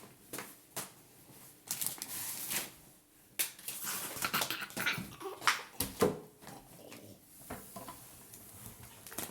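Irregular rustling with scattered clicks and knocks, as of packaging and objects being handled and moved about, busiest in the middle and with a brief squeak about six seconds in.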